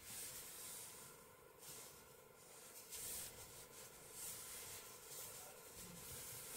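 Near silence: faint rustling of t-shirt yarn being pulled through stitches with a crochet hook, over a steady low room hiss.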